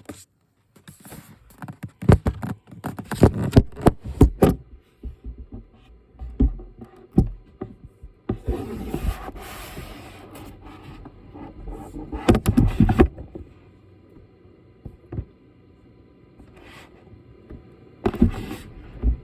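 Electric guitar played through a Marshall CODE 50 modelling amp. It plays bursts of struck chords and notes with pauses between them, a longer ringing passage in the middle, and another strum near the end.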